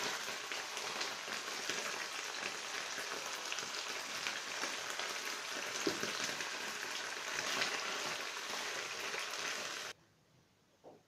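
Tomato sauce sizzling in a frying pan, a steady crackling hiss that cuts off abruptly near the end.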